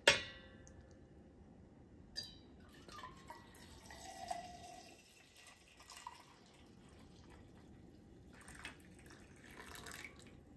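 Brewed coffee pouring in a thin, trickling stream from a glass Chemex carafe into a metal tumbler. A sharp clink comes at the very start, the loudest sound, and a smaller knock about two seconds in.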